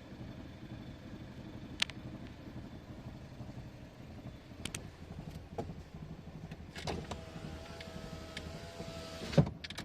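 Volkswagen Passat 1.4 running at idle with scattered clicks and knocks over a low rumble, then a steady whine for about two seconds near the end, and a loud knock just before the end. This is the rattle or vibration the owner is hunting, which he places somewhere on the right.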